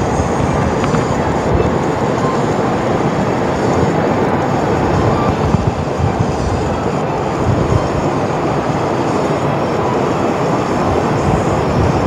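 Waterfall pouring over rocks into a pool close by: a loud, steady rush of falling water.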